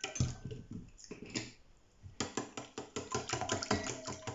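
Wire whisk beating eggs, milk and olive oil in a stainless steel bowl: a few scattered clicks, then from about two seconds in a fast, even run of ticking strokes against the metal.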